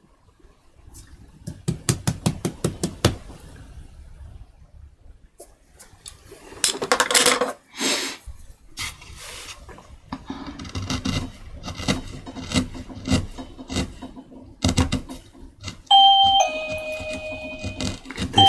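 Clicks and scrapes of a hand chisel cutting into a woodblock, then near the end a two-tone entry chime sounds a falling ding-dong, announcing someone coming in, and starts again just as it ends. The chime is the loudest sound.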